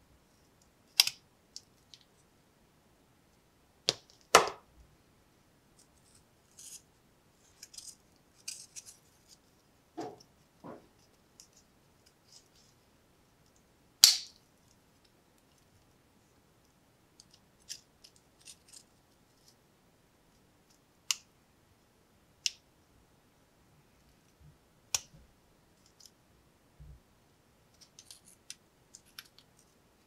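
Parts of an old Klein electrician's pocket knife, steel blades, springs and brass liners, clicking and clinking as they are worked apart by hand. There are a dozen or so sharp separate clicks a few seconds apart, with light scraping and rattling between them.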